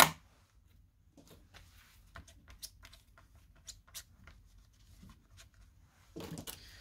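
Light clicks and taps of craft supplies being handled on a desk, with a sharp click at the very start as an ink pad is handled. A short rustle comes about six seconds in.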